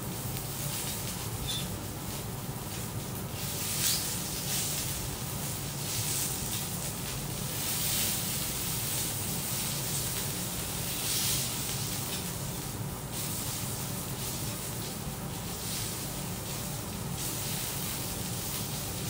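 Beef steak sizzling on a steel teppanyaki griddle as it is cut into pieces with a knife and fork, the hiss swelling several times. A steady low hum runs underneath.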